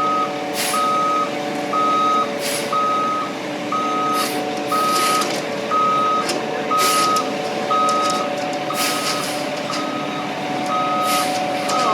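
Concrete mixer truck backing up: its reversing alarm beeps steadily about once a second over the running engine, with short hisses every second or two.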